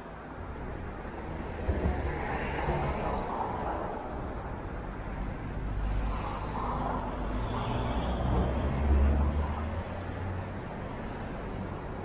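Car road noise: engine and tyre rumble as vehicles drive by. It swells about two seconds in and again, louder, around eight to nine seconds.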